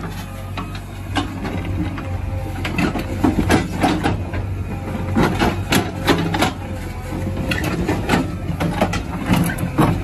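JCB backhoe loader's diesel engine running steadily while its bucket digs stony soil, with irregular clanks and knocks of metal on stone and falling rock throughout.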